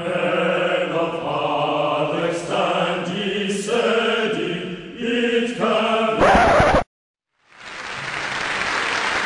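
A choir chanting for about six seconds, ending in a louder burst and a sudden cut. After a short silence, an audience applauding.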